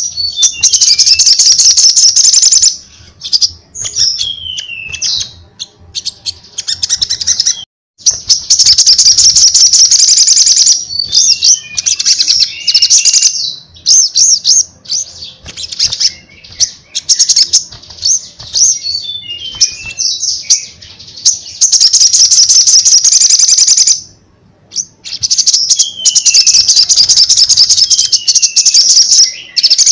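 Caged sogon sunbird singing loudly in long phrases of high, rapid trills and quick descending notes, with short pauses between phrases.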